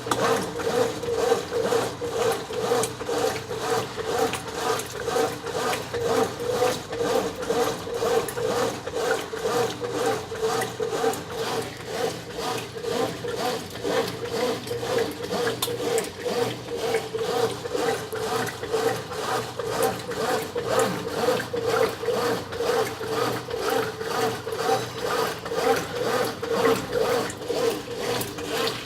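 Brastemp 9 kg top-loading washing machine agitating a load in high-level water: a steady motor hum with rhythmic churning pulses, about two a second.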